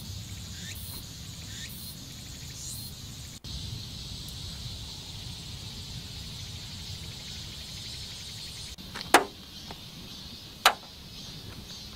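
Steady high insect chirring outdoors, with a few short rising chirps in the first few seconds. About nine seconds in come two sharp snaps a second and a half apart, a towel being flicked out with a snap.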